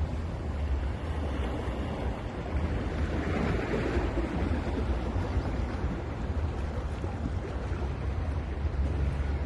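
Sea surf on a beach: a wave breaks and washes in, swelling and easing off around three to five seconds in, over a steady low rumble of surf and wind on the microphone.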